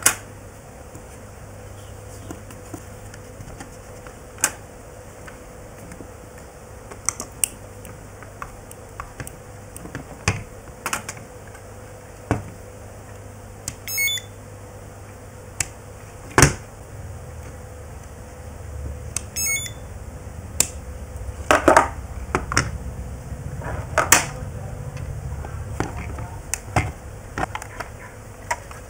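Irregular sharp plastic clicks and knocks as the two halves of a Walkera Devo 7E transmitter's plastic case are handled and pressed together, busier and louder in the second half, over a faint steady hum.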